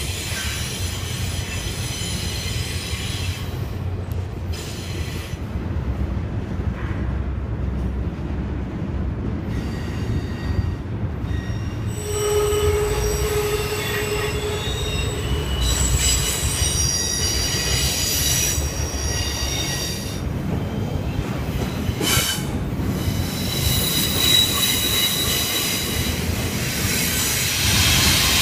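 Double-stack container freight train rolling past: a steady low rumble of the cars, with high metallic wheel squeals coming and going and one lower squeal held for a few seconds about halfway.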